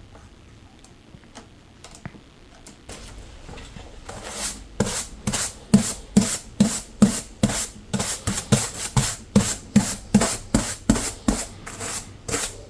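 Hand-worked strokes rubbing back and forth on the wood of an archtop guitar's body, in an even rhythm of about two strokes a second. It starts faint and grows louder about four seconds in.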